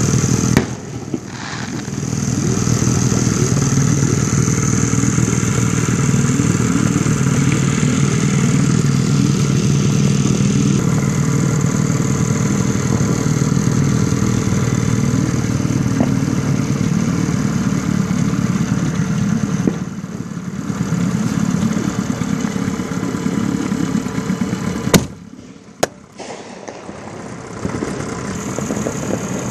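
Small boat's outboard motor running steadily. There is a sharp bang just after the start and a louder one near the end, after which the motor's sound drops away for a few seconds before coming back more quietly.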